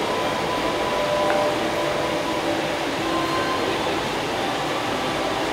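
Steady crowd hubbub in a packed hall: many people talking indistinctly over a constant noise bed.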